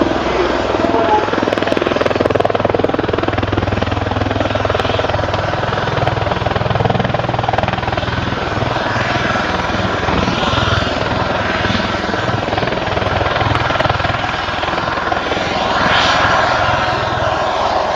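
Helicopter flying a display, its rotor and engine making a loud, steady noise throughout.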